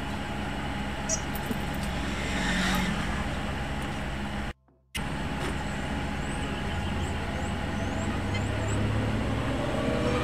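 Steady background rumble with a low hum, traffic-like, briefly cut to silence a little before halfway through.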